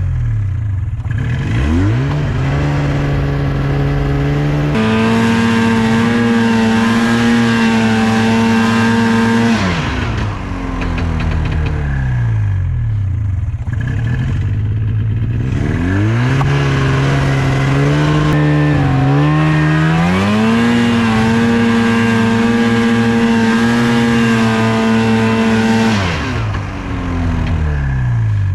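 Snowmobile engine revving hard twice: each time the pitch climbs, holds high for several seconds, then drops back.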